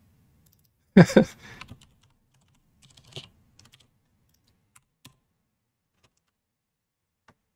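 Scattered computer keyboard keystrokes: a short cluster of taps about three seconds in, then single key presses spaced out, with a short louder sound about a second in.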